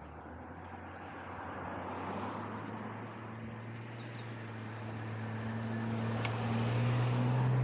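A car approaching, its engine hum and tyre noise growing steadily louder.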